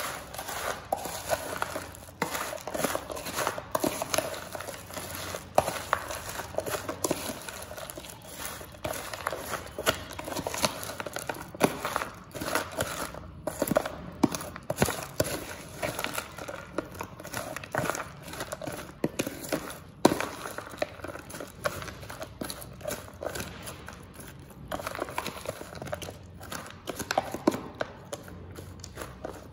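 Crisp Kurkure and Lays chips crunching and crackling, with many sharp, irregular crunches in quick succession.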